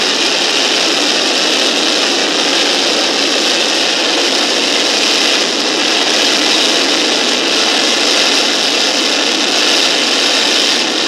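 General Electric J79-11B turbojet from an F-104 Starfighter running in afterburner: a loud, steady rush of jet noise that holds unchanged throughout.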